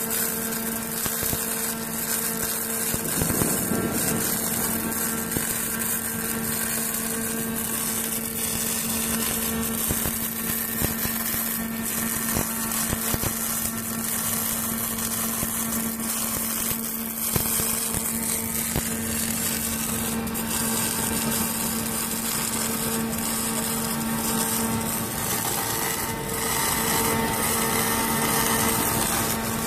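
MIG/MAG welding arc from a Fronius TPS 500i at about 290 A and 26.5 V, with 1.2 mm wire and argon-CO2 shielding gas: a steady spray-arc hiss and crackle over a low steady hum.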